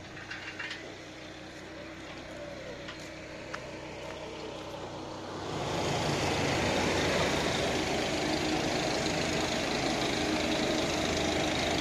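Outdoor street noise with a vehicle engine running. About five and a half seconds in it gets suddenly louder, with a steady rushing hiss over the engine hum.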